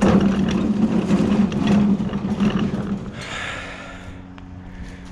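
Loud metal rattling and scraping for about three seconds as a hand dolly and its load are worked in a truck bed, then a brief hiss, over a truck engine idling steadily.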